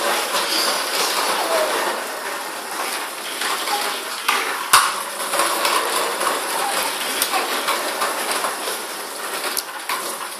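Hard plastic wheels of a ride-on swing car and a baby walker rolling and rattling over a tiled floor, a steady clatter with one sharp knock near the middle.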